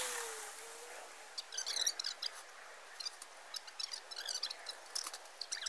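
Small birds chirping sporadically, scattered short high chirps and ticks, with a soft whoosh dying away in the first second.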